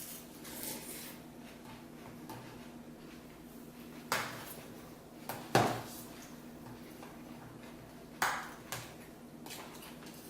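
Spoons clinking against cereal bowls: about five sharp clinks spread over the stretch, the loudest about halfway through, with a faint steady hum underneath.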